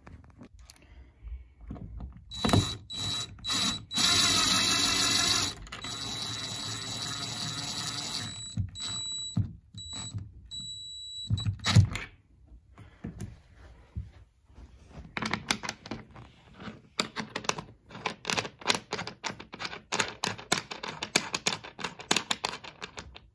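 DeWalt cordless driver running to screw the metal standoff mounts into the wall anchors: one long run of several seconds with a steady high whine, then a few short bursts as the screws seat. Near the end comes a string of light clicks and taps from the metal parts being handled.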